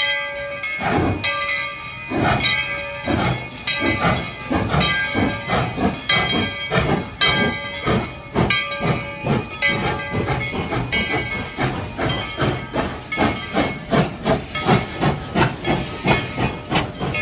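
Narrow-gauge steam locomotive pulling out: exhaust chuffs that start about a second apart and quicken to about three a second, with steam hissing between them. A steady ringing tone sounds over the first part and fades out near the end.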